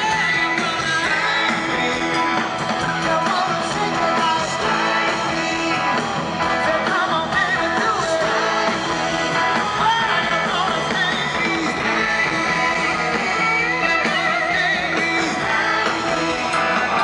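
Rock band playing live through a PA: electric guitars, electric bass and drums, with a male lead singer's vocals.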